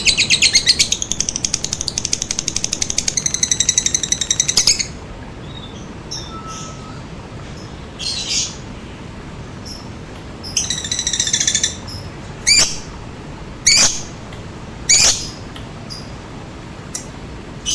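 Lovebird's long, rapid chattering trill (the "ngekek") for about the first five seconds. After a pause comes a shorter burst of chatter and a few sharp single chirps falling in pitch, about a second apart, over a steady background hiss.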